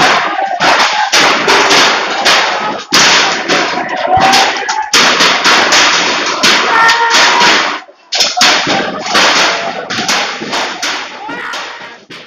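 A crowd of rioters striking things with bamboo sticks: a rapid, irregular run of loud sharp cracks and bangs, with a short lull about eight seconds in. Shouting voices are mixed in.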